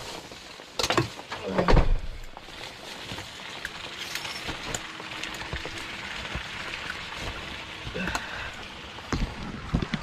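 Steady rain falling. About one and two seconds in there are two loud knocks, and a few smaller knocks come near the end.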